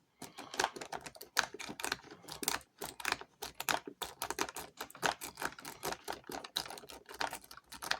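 A rake pick scrubbing rapidly in and out of a Schlage SecureKey deadbolt's keyway under tension, giving a fast, irregular run of small metallic clicks and scrapes. The lock does not open: this side is being stubborn.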